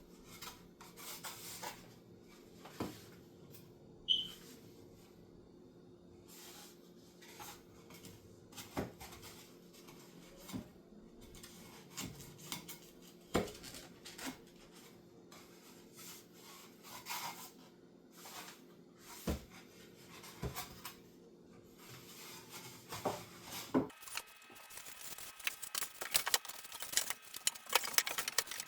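Light scattered taps, knocks and rubbing from handling and fitting cardboard marquee-number panels, over a faint steady hum. About four seconds before the end the hum stops and a denser run of small clicks and crinkling follows.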